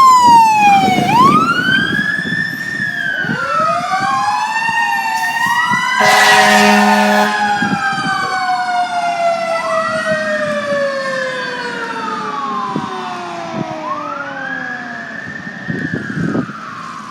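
Fire engine siren sounding code 3: rising-and-falling wails overlapping with a tone that slowly falls in pitch, and one air horn blast of about a second and a half near the middle. It grows fainter toward the end as the engine moves away.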